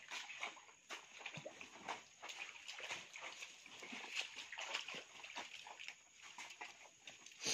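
Wet mud squelching and sloshing, with leaves and stalks rustling, as a person digs by hand in waterlogged ground; many short, irregular sounds.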